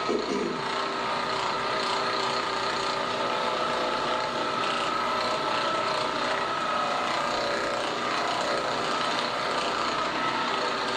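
Electric massager running steadily on the back muscles, with a constant mechanical hum.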